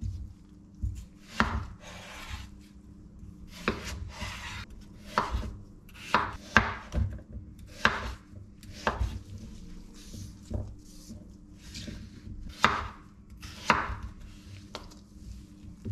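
Chef's knife cutting peeled raw potatoes into chunks on a bamboo cutting board: irregular knocks of the blade on the board about once a second, some with a short scrape as the blade slices through.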